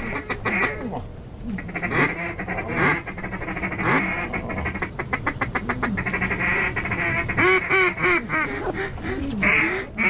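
Duck quacking: a long run of rapid chattering quacks, then several loud single quacks near the end.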